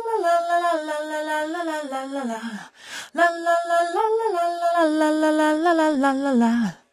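A female backing vocal sample sung a cappella in two phrases, each ending in a falling run of notes, with a short breath between them. It plays through a stereo delay that spreads it hard left and right, and a high-pass filter thins out its bottom end.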